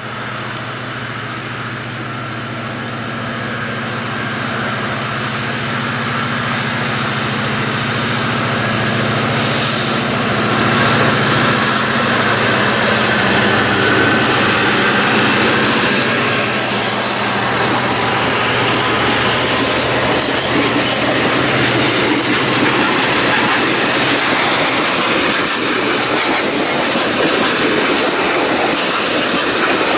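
Freight train passing close by: the low, steady engine hum of its diesel locomotives, then the loud rolling rumble and clatter of the boxcars going by. The hum fades after about twenty seconds. A brief wheel squeal comes about halfway through.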